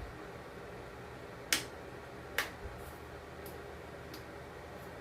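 A few sharp clicks, two louder ones about a second and a half in and just after two seconds, then three fainter ones spaced through the rest, over a steady low hum. They are plausibly from handling the furnace's switch and controls.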